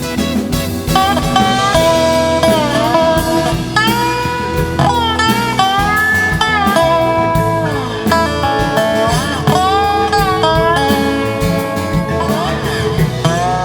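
A band plays an instrumental break with a lead guitar solo of bending, sliding notes over bass and drums.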